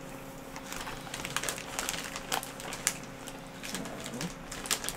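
Clear plastic bag of wrapped candies crinkling as someone rummages through it: a run of small crackles and clicks.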